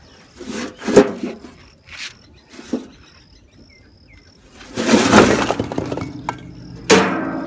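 Bricks dropped and stacked by hand into a steel hoist box: a run of hard clattering knocks, a longer rattling clatter about five seconds in, and a last sharp clank near the end that leaves the metal box ringing.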